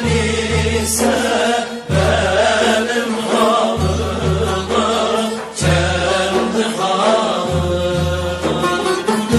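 Background music: a chant-like, wavering melody over deep bass notes that swell and drop every second or so.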